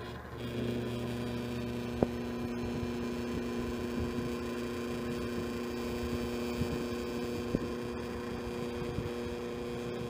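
Microwave-oven transformer, rewound as a high-current (400–500 amp) metal melter, buzzing with a steady mains hum under heavy load as its electrodes melt the metal clamped between them. The hum strengthens about a third of a second in and then holds steady, with a single sharp click about two seconds in.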